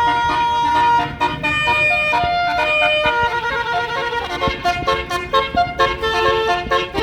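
Basuri musical air horn on a tour bus playing a tune through its roof-mounted trumpets: a string of loud, held horn notes stepping up and down in pitch.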